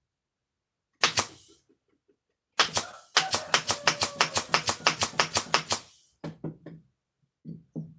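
Hammer striking a wooden speaker-box panel: one blow about a second in, then a fast run of about twenty even taps, some six a second, and a few lighter taps near the end.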